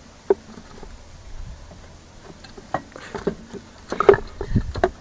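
Scattered knocks, clicks and scrapes as a stick prods the charred debris of a burnt-out, air-cooled engine. The loudest knocks come about four seconds in, with some low thumps just after.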